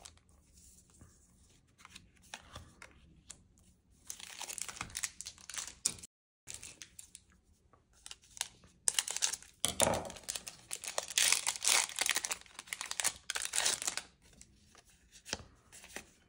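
A foil trading-card booster pack being torn open and crinkled in the hand, heard as a few spells of tearing and rustling. The longest and loudest spell comes from about nine to fourteen seconds in, and the sound drops out completely for a moment about six seconds in.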